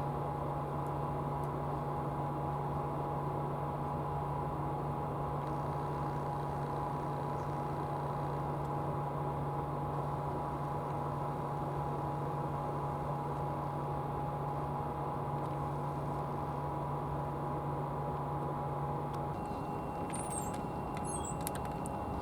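Boat engine running steadily, heard on board as a constant drone with a low hum and a mid-pitched whine. About 19 seconds in the low hum drops away and a thin high tone starts, with a few faint high clicks near the end.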